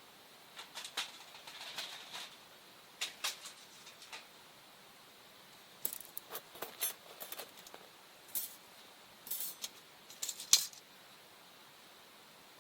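Scattered light clicks and clinks of small hard objects, in short clusters with quiet gaps between, the sharpest one near the end.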